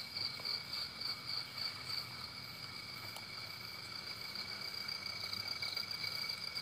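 Night insects trilling steadily in two high pitches, the higher trill pulsing for the first couple of seconds; a faint click about three seconds in.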